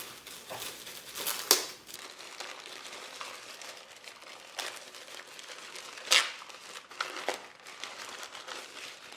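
Packaging crinkling and rustling as it is handled, with scattered sharper crackles, the two loudest about a second and a half in and about six seconds in.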